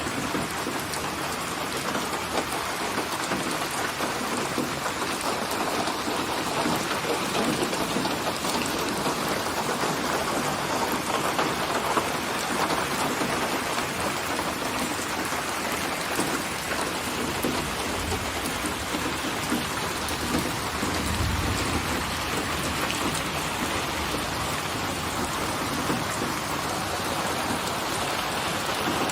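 Steady rain falling, an even hiss of drops on surfaces, with a brief low rumble about two-thirds of the way through.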